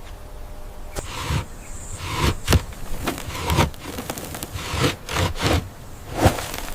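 A run of irregular scrapes and rustles, about a dozen short strokes of uneven loudness, the loudest about two and a half seconds in and again near the end.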